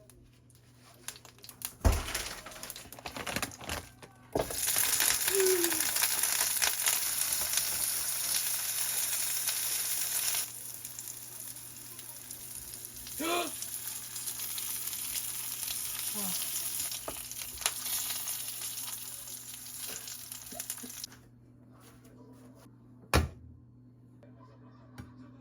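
Food sizzling in a frying pan: it starts loud with a sudden hiss about four seconds in, settles to a quieter sizzle from about ten seconds in, and stops around twenty-one seconds in. A couple of knocks of utensils or cookware, one near the start and a sharp one near the end.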